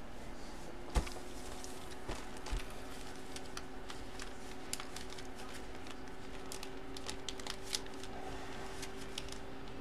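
Clear plastic bag crinkling and crackling as a bagged jersey is handled and set aside, with a knock about a second in and scattered light clicks after, over a steady faint hum.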